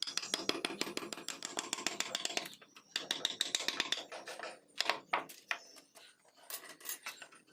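Hand carving tool scraping and cutting wood in quick, rapid rasping strokes, in bouts of a second or two broken by short pauses.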